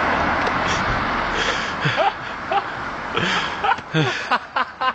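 A vehicle passing on the road fades out over the first second and a half. Then comes stifled laughter from close by: short squeaky giggles and catches of breath, coming thicker near the end.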